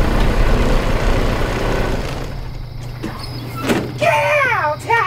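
Old school bus's engine rumbling, then dying down about two seconds in to a low steady hum. A short clunk follows as the bus's folding front door opens, then a high wavering whine near the end.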